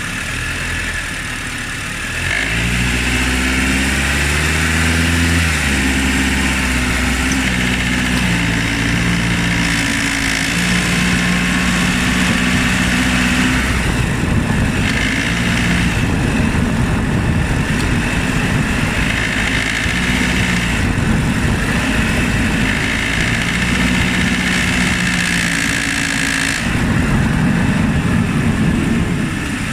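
Honda Odyssey's K24 2.4-litre four-cylinder engine running under way, its note stepping up in pitch in stages over the first half and then holding steadier amid rougher road noise. The owner records this as the engine knocking at around 1600–1800 rpm while driving.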